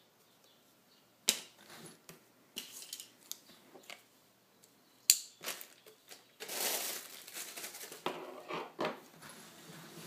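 Handling noise from a Master Lock 8291DPS chain lock and its cardboard tag on a countertop: a few sharp clicks and taps, then a longer rustling and shuffling as the fabric-sleeved chain is picked up and moved.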